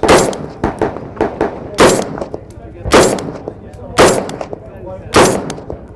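CMMG MK47 Mutant rifle in 7.62x39mm firing five loud, slow-paced semi-automatic shots about a second apart, each followed by a short ring-out. Fainter, sharper cracks come between them.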